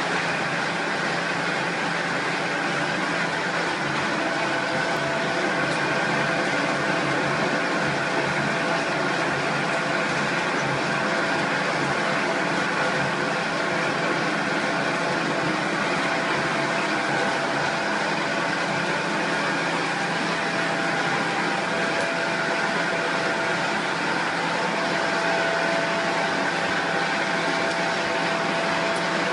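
Plastic recycling machinery running steadily: electric motors and a plastic extruder give a continuous drone with a couple of steady whining tones.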